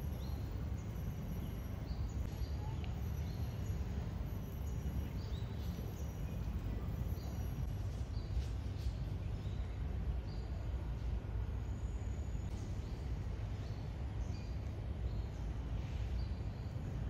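Outdoor ambience: a steady low rumble with a bird repeating short, high chirps about every second.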